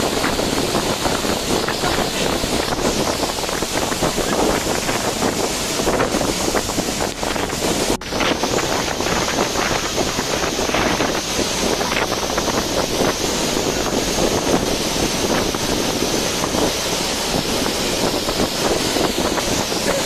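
Loud, steady rush of a big waterfall in heavy flow pounding into its plunge pool, with wind buffeting the microphone. The sound briefly drops about eight seconds in.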